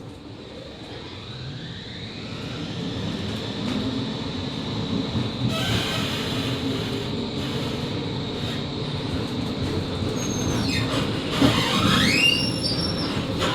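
Končar TMK 2200 low-floor tram pulling away and gathering speed, heard from inside. Its electric drive whine rises in pitch and the running noise grows louder. Near the end the wheels squeal with shifting high tones.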